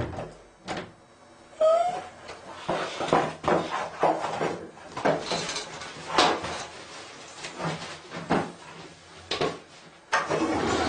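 A bathroom door shuts with a knock, then a series of small knocks, clatters and rustles as things around a toilet are handled. There is a short rising squeak about two seconds in.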